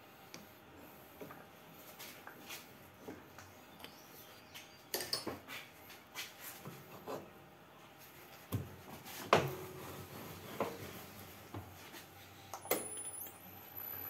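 Scattered metal clicks and clanks of a chuck key working a lathe's three-jaw chuck, tightening the jaws on a small part; the loudest clank, about nine seconds in, rings briefly. Right at the end the lathe is switched on and its motor starts running.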